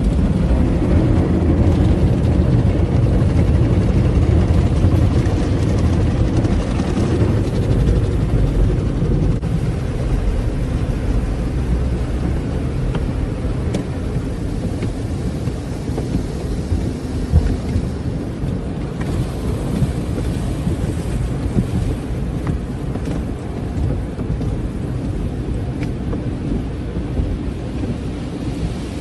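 Car wash running: a steady rumbling wash of spraying water and machinery, heaviest in the low end. It is louder for the first nine seconds or so, then settles a little quieter, with an occasional knock.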